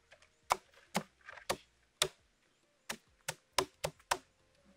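Sharp chopping knocks, one after another, about two a second and coming faster in the second half, from a hand tool striking during cashew-processing work.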